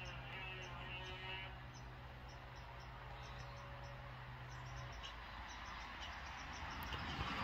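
Crickets chirping, short high chirps repeating every fraction of a second, over a low steady hum that stops about five seconds in.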